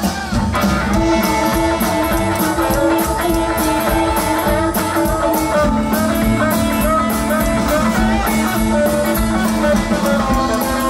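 Live rock and roll band playing an instrumental break with a steady beat: electric guitar over upright bass and drum kit.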